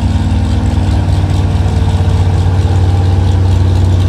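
Gas-engined street pickup's engine running hard under load while pulling a weight-transfer sled, a steady low exhaust note that grows slowly louder as the truck comes nearer.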